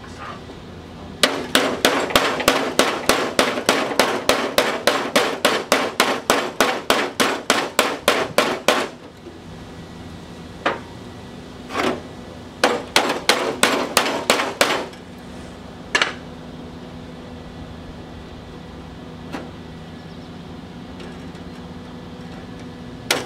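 Hammer blows on sheet steel, folding over the edge of a new patch panel. A fast even run of about four strikes a second lasts some seven seconds, then come a couple of single blows and a shorter run of strikes.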